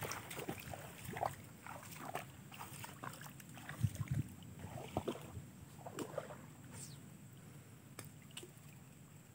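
Faint, irregular sloshing and splashing of shallow flood water, with a few louder splashes in the middle that die away near the end.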